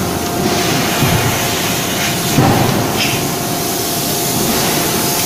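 Forging-shop machinery around a closed-die forging hammer running with a steady hiss and a constant hum, with no hammer blows.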